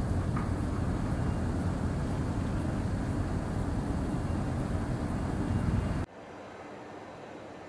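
Loud, uneven low rumble of outdoor harbour noise, with no clear engine tone. It cuts off abruptly about six seconds in, leaving a much quieter steady hum.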